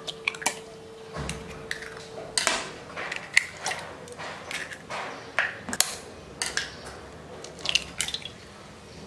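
Raw eggs being cracked open over a glass bowl: repeated sharp taps and cracks of eggshell, with the wet drop of egg whites and yolks into the bowl.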